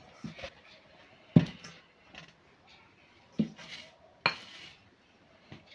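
Kitchenware being handled and set down: a few separate clanks and knocks as a stainless steel mixing bowl and whisk are put in place, the sharpest about a second and a half in.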